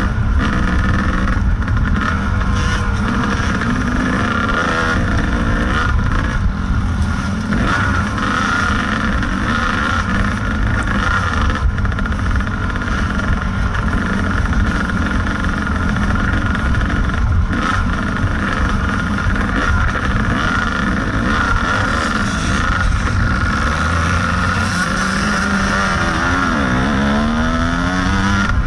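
Kawasaki KDX 220 dirt bike's single-cylinder two-stroke engine running hard under the rider, its pitch rising and falling as the throttle is worked, with a clear dip and climb near the end.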